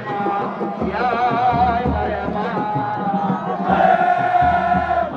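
A male singer chanting a Sufi zikr devotional song into a microphone over a sound system, with wavering, ornamented held notes.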